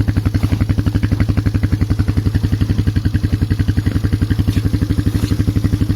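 Polaris Magnum 425 ATV's single-cylinder four-stroke engine running steadily at low revs, with an even, rapid firing pulse.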